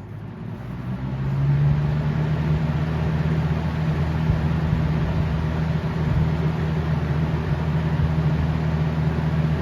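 Lasko 3723 box fan switched to its high speed, spinning up over the first second and a half, then running steadily with a rush of moving air over a low motor hum.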